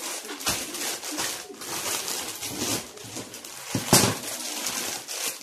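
Clear plastic bags of whole cashew nuts rustling and crinkling as they are handled and laid out on a table, with a sharp knock about four seconds in.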